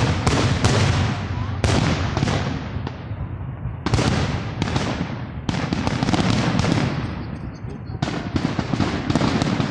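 Fireworks display: aerial shells bursting one after another in a quick barrage, with short lulls about three and a half seconds in and again near the end.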